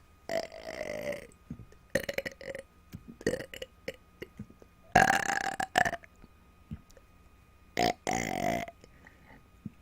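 A woman burping on command, without food or drink: a string of about five burps of varying length with short clicks between them, the longest and loudest about five seconds in.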